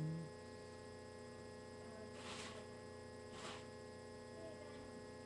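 Steady faint electrical hum, with two short soft puffs of hiss about a second apart near the middle.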